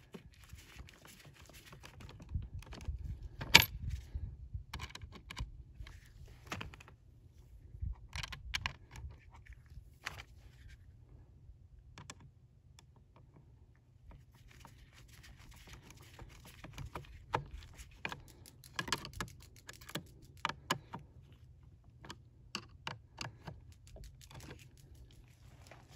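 A screwdriver driving small screws through metal ball retainers into a plastic foot-pedal assembly: scattered small metallic clicks and clinks, the sharpest about three and a half seconds in, over a low rumble.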